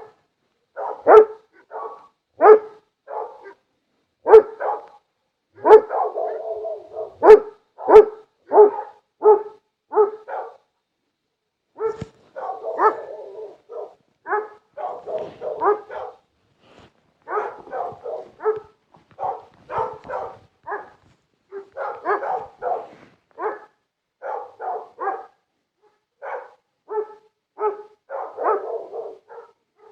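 Dogs barking over and over in short, sharp barks, about one to two a second, with a short pause about a third of the way through.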